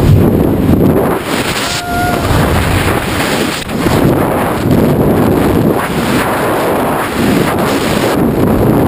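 Loud wind rushing and buffeting over the camera's microphone in skydiving freefall.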